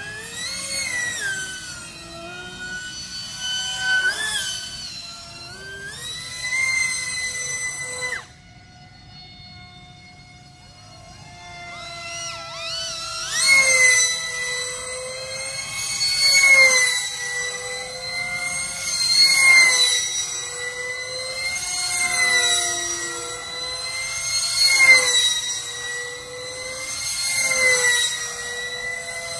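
Brushless electric motor (Hobbywing 2405, 2850 kV) of a model aerobatic jet, driving a 5-inch four-blade pusher propeller: a high whine that rises and falls in pitch with the throttle. About eight seconds in it is throttled back abruptly to a quiet hum for a few seconds, then winds back up and swells and dips about every three seconds.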